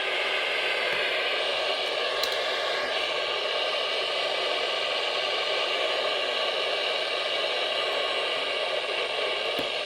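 Steady hiss of radio static from a receiver with no voice coming through: the weather broadcast signal has dropped out.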